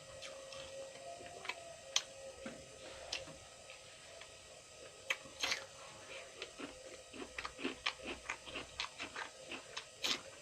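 A person chewing food close to the microphone: wet mouth clicks and smacks, scattered at first and then a quick run of them, about three or four a second, in the second half.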